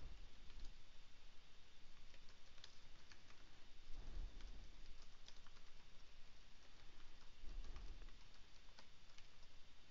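Computer keyboard typing: quick runs of key clicks, with a couple of duller, lower thumps about 4 and 7.5 seconds in.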